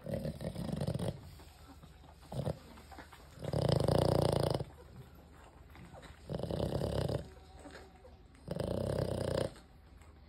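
Adult French bulldog breathing noisily through its short muzzle: four loud breaths, each about a second long and about two and a half seconds apart.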